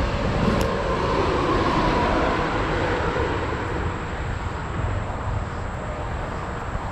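Road traffic on a highway bridge: a steady rumble with a faint droning whine that swells over the first two seconds and then slowly fades.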